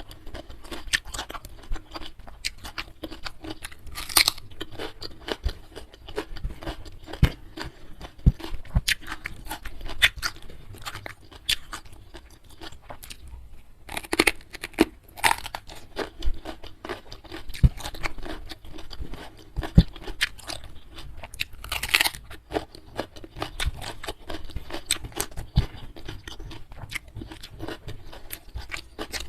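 A person chewing and crunching food close to the microphone: a steady stream of small clicks and soft crunches, with a few louder crunches about four, fourteen and twenty-two seconds in.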